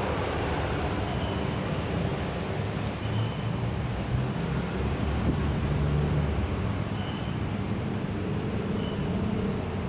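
Steady low rumbling background noise, unbroken throughout, with no clear events standing out.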